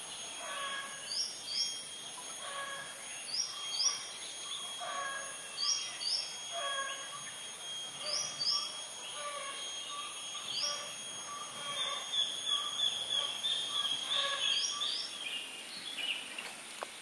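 A bird repeating a short call about once a second, each call a quick pair of rising chirps over lower notes, with a steady high ringing underneath. About two seconds before the end the sound drops to a quieter background.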